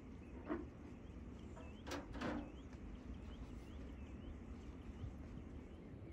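A large metal baking pan and its metal lid set down on an iron grill stand over a charcoal fire: a light clank about half a second in, then two louder clanks around two seconds in. Birds chirp faintly.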